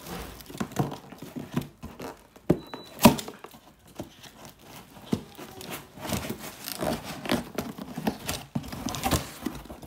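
Cardboard carton being opened by hand, its flaps and the clear plastic wrapping inside rustling and crinkling in irregular bursts, with one sharp snap about three seconds in.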